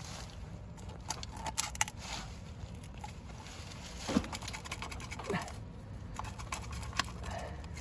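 Scattered light clicks and knocks of tools and parts being handled, with two brief falling squeaks about four and five seconds in, over a low steady rumble.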